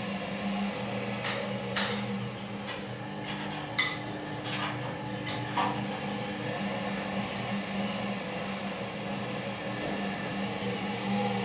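Ardo washing machine running with a steady hum, with a handful of sharp knocks and clatters in the first half.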